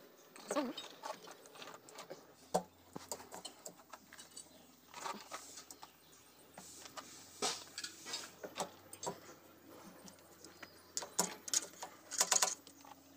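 Links of a motor grader's steel axle drive chain clinking and rattling as they are handled inside the chain housing: scattered metallic clicks, busier in the second half.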